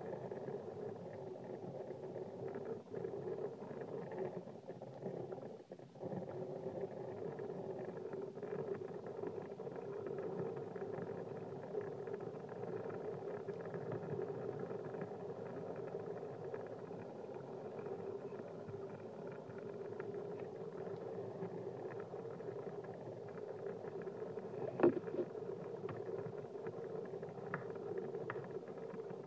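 Water bubbling steadily through the stacked percolators of a tall glass bong as smoke is drawn through it in one long, unbroken hit. There is a single sharp click about 25 seconds in.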